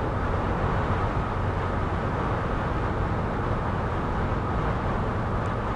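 Steady cabin noise inside a Mercedes Sprinter van driving in strong wind: a continuous low road-and-engine rumble with wind rush over the body.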